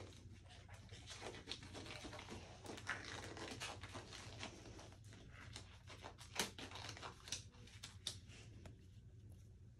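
Blue nitrile exam gloves being pulled onto the hands: faint crinkling rustle of the thin gloves with many short clicks, the sharpest about six and a half seconds in.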